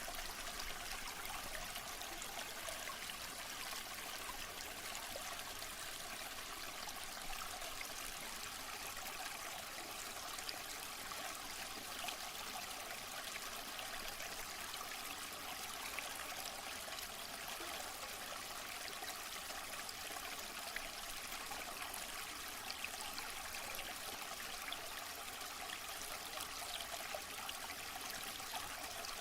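Water falling and running steadily as a waterfall, an even rushing and splashing without pauses, weighted toward the higher frequencies with little low rumble.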